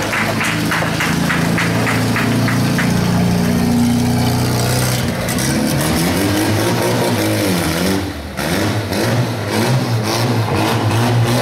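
Car engine revving up and down repeatedly, its pitch rising and falling, with a brief dip about eight seconds in.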